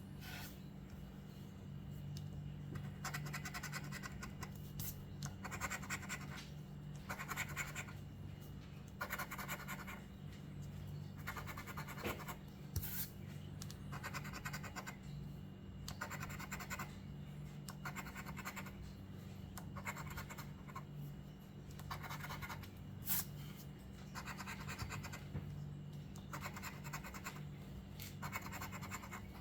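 Scratch-off lottery ticket being scratched, the coating rubbed off in short strokes about once a second, over a steady low hum.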